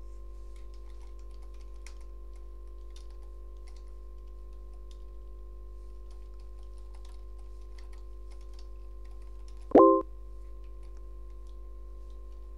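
Computer keyboard typing: faint, scattered keystrokes over a steady electrical hum. About ten seconds in, a short, loud chime sounds once: the chat site's new-message alert.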